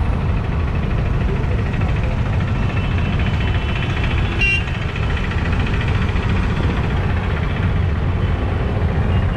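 Road traffic heard from an open rickshaw in motion: a steady low rumble of vehicles and road noise, with a short high-pitched tone about halfway through.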